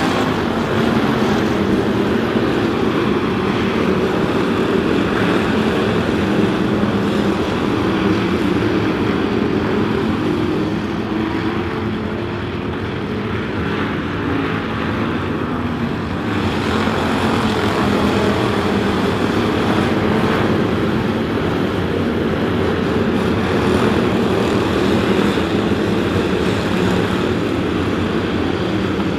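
A pack of IMCA Hobby Stock race car engines running at racing speed around a dirt oval, a steady loud drone of many engines at once. It fades a little about halfway through as the pack runs down the far side, then swells again as the cars come back around.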